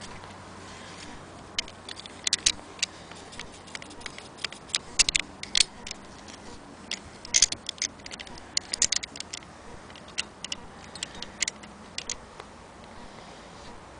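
Frister & Rossmann hand-crank sewing machine's crank and mechanism clicking as it is handled and turned. The clicks are sharp and uneven, coming in small clusters, and start about a second and a half in and die away near the end.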